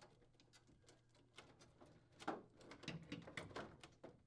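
Faint clicks and knocks of plastic parts being handled as the evaporator fan motor is pulled from its support, most of them bunched together a little after two seconds in, over a faint low hum.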